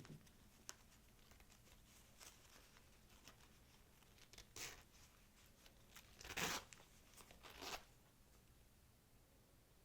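Packaging being handled close up: a few short, soft rustles and crinkles of paper or wrapping, the loudest about six and a half seconds in, with quiet between them.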